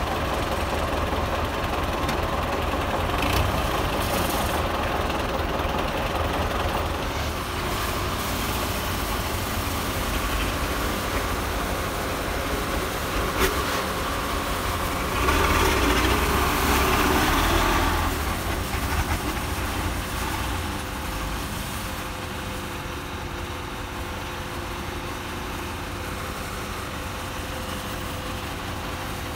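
Diesel tractor engines running as a bogged Belarus MTZ-820 is pulled out of the mud by a second tractor. The engines get louder for a few seconds about halfway through, then settle to a quieter, steady running.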